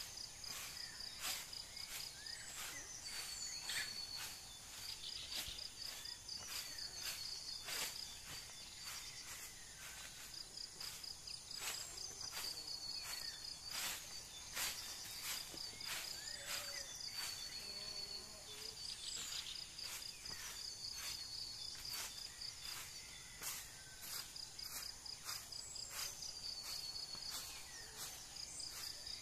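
Outdoor insect chorus: a cricket-like insect chirping in quick, high-pitched pulse trains that repeat in runs of a few seconds, with scattered sharp clicks and a few short gliding calls from other small animals.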